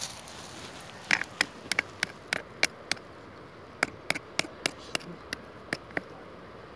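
Sharp, quick taps of a hammer on a knife blade driven into the top of a sawn-off cherry stock, splitting the wood for a cleft graft. The taps come in two runs of about eight each, with a short pause about three seconds in.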